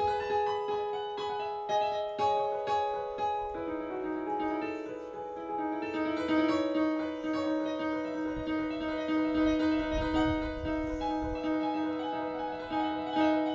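Roland stage keyboard played solo on a piano-like sound: struck chords and runs over several notes, with a lower note held underneath from a few seconds in.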